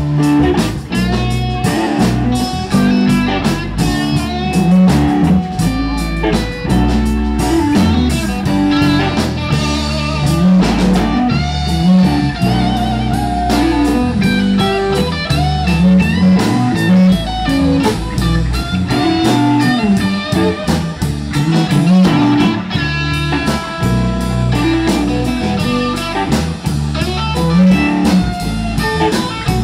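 Live band playing: electric guitars over bass guitar and a drum kit, loud and continuous.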